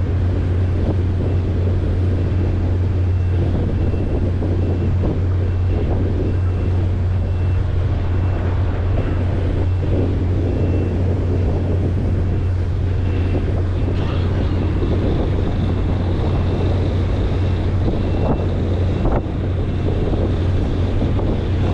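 Boat engine running with a steady low drone, wind buffeting the microphone, and a few faint knocks near the end.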